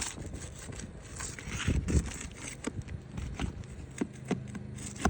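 Irregular scrapes, clicks and crackles of hands and tools working on asphalt roof shingles, loudest about two seconds in.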